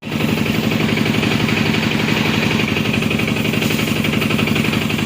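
Electric welding arc on a damaged motorcycle fuel tank, a steady, fast, even crackling buzz.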